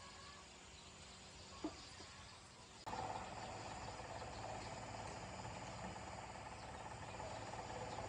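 A faint steady background, then about three seconds in an engine comes in abruptly and runs steadily at idle.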